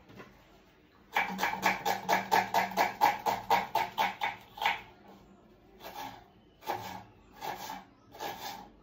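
Kitchen knife chopping an onion finely on a wooden chopping board: a quick run of about five or six chops a second starting about a second in, then slower, spaced chops.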